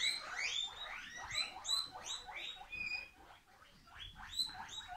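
Guinea pigs wheeking: a quick run of short, rising squeals, several a second, that pause briefly a little past the middle and then start up again.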